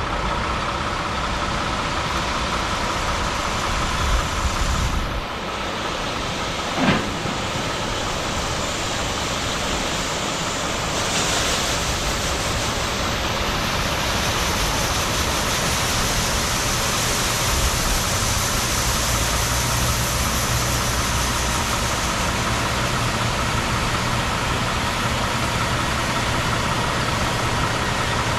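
Heavy harvest machinery running steadily, an engine and drive noise with a faint steady whine. There is a short sharp knock about seven seconds in.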